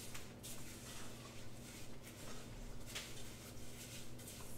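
Quiet room tone with a low steady hum and a few faint, scattered clicks.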